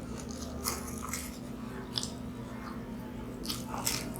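Chewing and biting into Mughlai paratha, an egg-stuffed fried flatbread, with a handful of short, soft mouth clicks and crackles at irregular moments.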